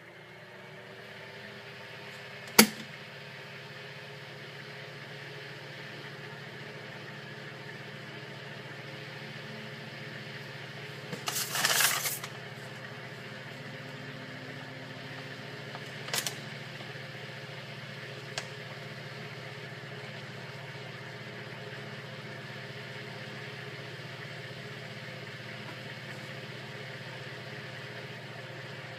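Electric fan motor coming up to speed and then running steadily with a hum. A sharp click about two and a half seconds in, a brief scraping noise around twelve seconds, and two smaller clicks a few seconds later.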